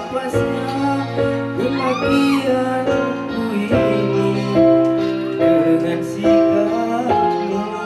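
Music: a song with a singing voice over held keyboard chords.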